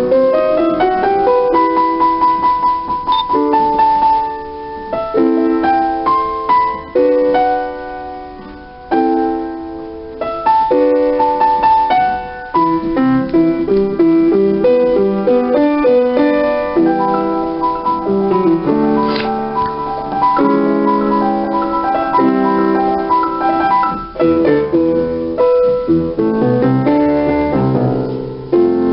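Piano music: a keyboard playing a melody over chords, notes changing steadily.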